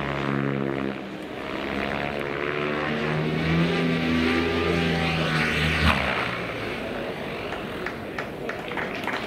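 XL Power Specter 700 RC helicopter flying, its rotor and drive making a pitched hum that rises and falls several times as it comes down. The hum fades out after about six seconds, when the helicopter is on the ground.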